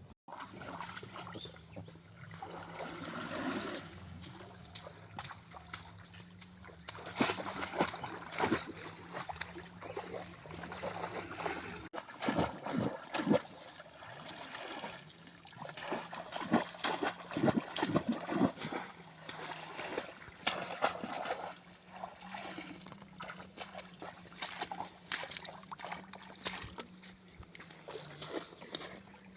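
River water splashing and sloshing in irregular bursts, with trickling between them.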